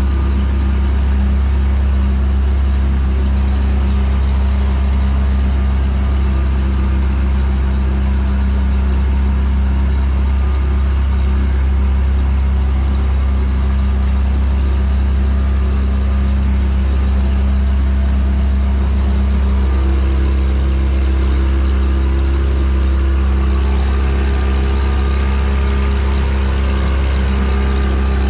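A motor engine running at a steady speed, a loud, even low drone with a few steady tones over it. It shifts slightly in tone about two-thirds of the way through.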